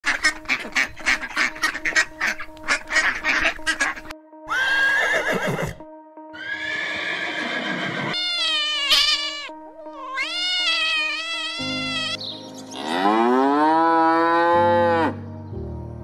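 A run of animal calls over background music: rapid duck quacks, then several cat meows, then one long cow moo rising in pitch near the end.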